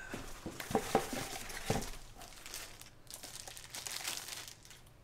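Clear plastic bag crinkling in someone's hands as a graded comic book slab is handled and slid out of it, fading off near the end.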